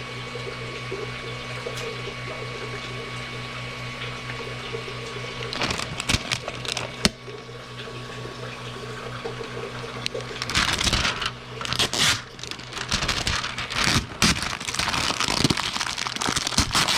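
Steady low electrical hum, with bursts of rustling, clicking and clattering from parts being handled: briefly about six seconds in, then more or less continuously from about ten seconds in.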